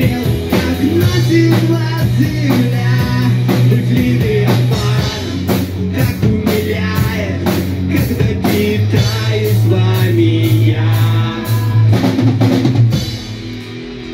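Live rock band playing: a drum kit keeps a fast, steady beat under electric guitar, bass and a singer. About a second before the end the drums stop and the music falls quieter.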